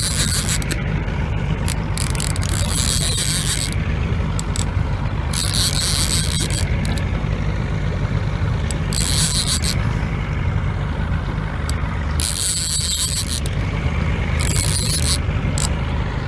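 Boat engine running steadily with a constant low rumble, with short bursts of high hiss coming and going every second or few.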